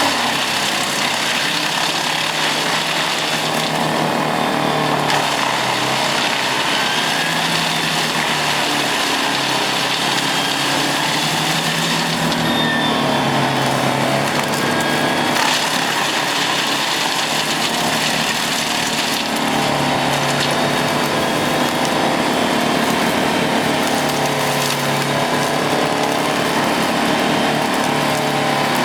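Large wood chipper running steadily while it chips wood, its engine pitch dipping and recovering several times under the load, over a constant grinding, shredding noise.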